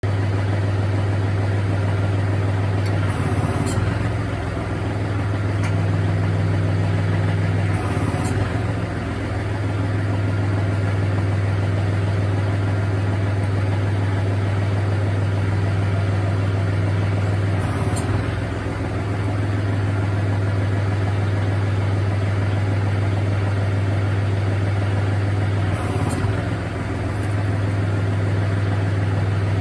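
Kubota L3560 compact tractor's diesel engine idling steadily, with a brief change in its note four times as the hydraulic top and tilt cylinders move the rear hitch.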